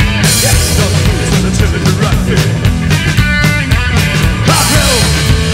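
A psychobilly rock band playing live: pounding drums, a driving bass line and guitar, with cymbals crashing near the start and again near the end.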